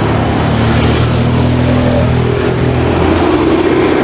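Ex-Kyoto City Tram 1900-series streetcar moving off through an intersection amid road traffic. A low steady hum runs throughout, and a tone rises in pitch over the second half as the car picks up speed.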